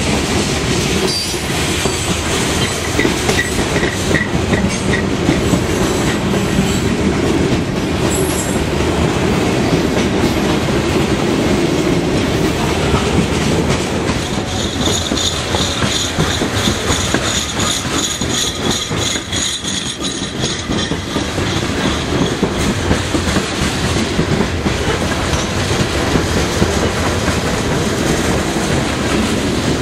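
Loaded freight-train hopper cars rolling past close by, a steady rumble of steel wheels clicking over the rail joints. For several seconds around the middle a high-pitched wheel squeal rides on top.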